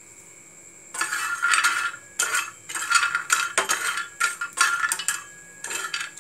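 A spatula scraping and knocking around a non-stick frying pan as dried urad dal badis are stirred. The strokes start about a second in and come roughly every half second, each with a slight metallic ring.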